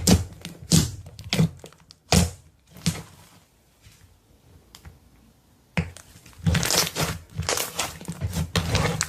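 Slime being squeezed and kneaded by hand, giving crackling, popping squelches in bursts, with a quieter pause in the middle before a dense run of crackling near the end.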